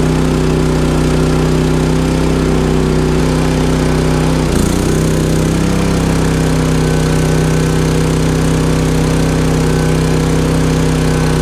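Champion 3400 dual-fuel inverter generator engine running steadily with eco mode off. About four and a half seconds in, the engine pitch briefly dips and recovers as a 13,500 BTU RV air conditioner's compressor kicks on. It then runs on steadily under the added load.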